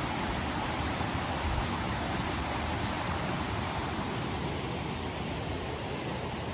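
Steady rush of a mountain stream running over rocks and a small cascade.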